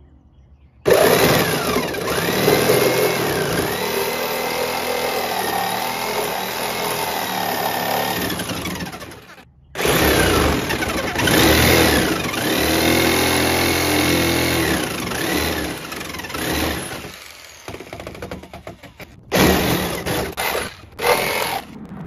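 Corded jigsaw cutting a headlight opening in a golf cart's front body panel; the motor whine wavers as the blade loads up, stops briefly about nine seconds in, runs again, and ends in a few short bursts.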